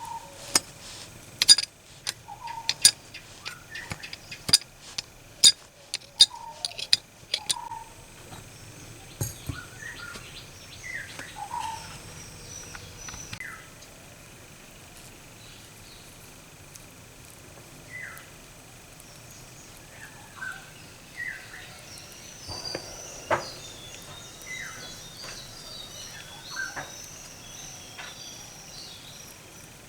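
A quick series of sharp metallic clicks and taps for the first eight seconds or so, as small metal parts are handled and knocked together. Small birds chirp in short, scattered calls throughout, busiest near the end.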